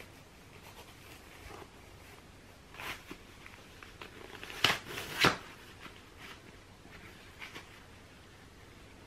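Handling of beige open-toe stockings being pulled over and off a foot and leg: soft fabric rustles, with two louder swishes about half a second apart near the middle.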